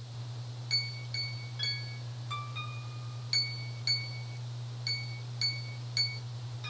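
Single high plinking notes picked one at a time on the strings of an electric guitar, about ten short ringing pings at an uneven pace. A steady low electrical hum runs underneath.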